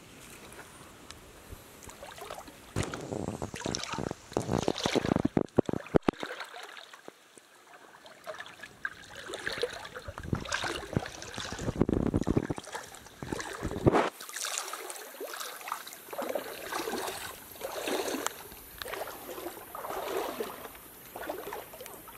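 Irregular splashing and rustling in a shallow, muddy stream bed with wet leaf litter, coming in uneven bursts with a few sharp clicks.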